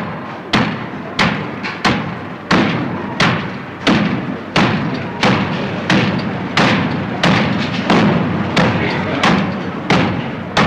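A steady series of loud, sharp thuds repeating evenly, about three every two seconds, each dying away briefly before the next.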